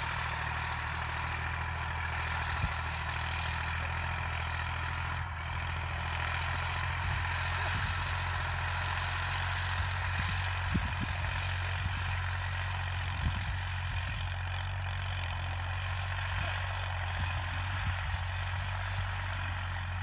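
A steady low mechanical drone under an even hiss, with a few faint knocks.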